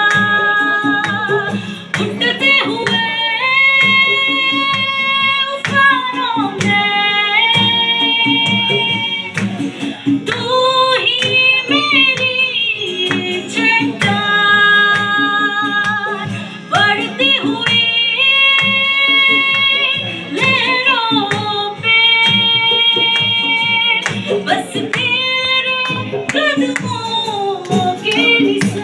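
A woman sings a worship song through a microphone in long held notes that slide between pitches. An acoustic guitar and drums accompany her.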